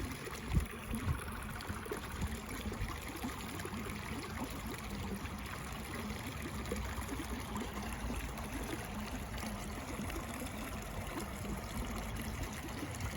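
Steady rushing outdoor background noise with no speech, with a few low bumps in the first second or so.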